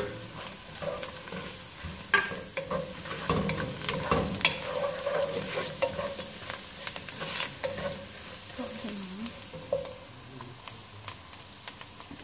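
Sliced carrots tipped into hot oil with onions and spices in a metal saucepan, sizzling as a wooden spoon stirs and knocks against the pan. The clicks and knocks are thickest in the first two-thirds and the sizzle goes quieter near the end.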